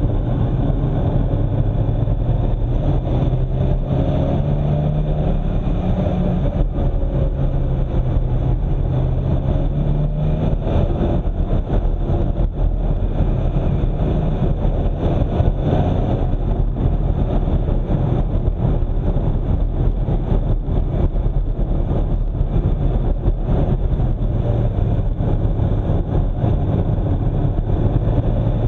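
Car engine running under way with road noise, the engine note shifting up and down during the first ten seconds or so.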